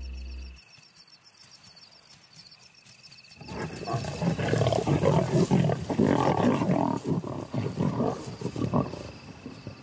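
Lions snarling and growling over a puku kill, a loud rough irregular snarling that breaks in about three and a half seconds in after a quiet stretch.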